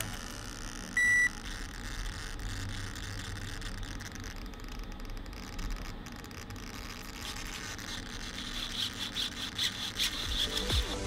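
A single short electronic beep, about a third of a second long, about a second in, from the RC car's radio transmitter as its buttons are worked. After it there is only faint background, with a light fluttering hiss near the end.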